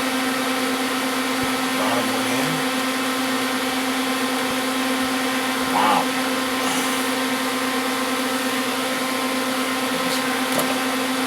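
Steady electric hum and whir, like a running fan or motor, holding one even pitch, with a couple of faint soft knocks from handling.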